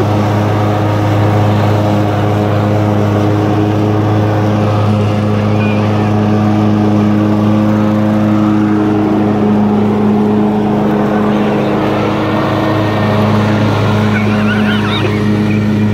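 Toro riding lawn mower's engine running at a steady speed as the mower drives across the lawn, a constant hum that holds one pitch.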